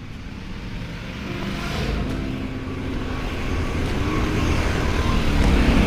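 Yamaha Ténéré adventure motorcycle engines running under way, a low rumble that grows steadily louder.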